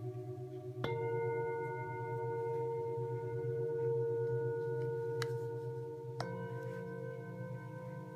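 Himalayan singing bowls ringing together in long, overlapping tones. One bowl is struck about a second in and another near the end, each adding a fresh ringing tone over the ones still sounding.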